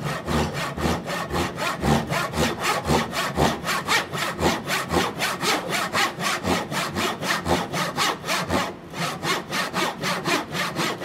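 Brass-backed dovetail saw cutting walnut by hand in steady, even strokes, about four a second, with a brief pause about nine seconds in. The cut is made at an angle for a half-blind dovetail in a thick drawer front.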